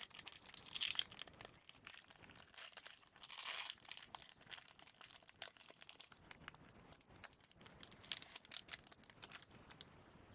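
A sealed 1997-98 Fleer Ultra basketball card pack being torn open, its wrapper tearing and crinkling in short rustling bursts among light clicks; the longest tear comes about three and a half seconds in, with another flurry near the end.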